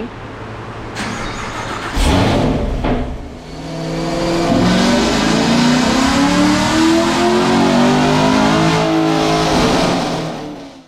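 Car engine fitted with 2-inch long-tube headers and an aftermarket intake, making its first full-throttle pull on a chassis dyno. After a short rev about two seconds in, the engine note climbs steadily in pitch for about six seconds, then cuts off sharply near the end.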